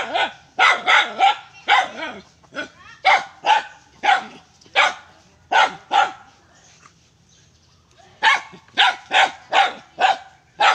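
Dog barking in rapid runs of short, sharp barks, with a pause of about a second and a half after the middle before a faster run starts up. It is barking while it lunges at a rooster.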